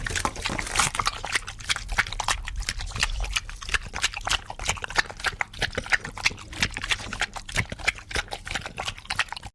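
An animal close by, heard as a dense, irregular run of sharp clicks and knocks over a low rumble.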